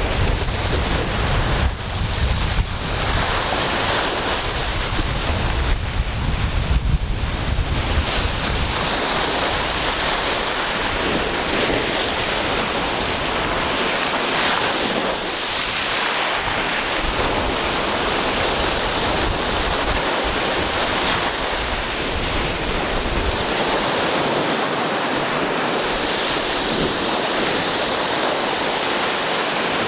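Ocean waves washing onto the shore in a continuous rushing surf. For the first several seconds, wind buffets the microphone with a gusty low rumble that then eases.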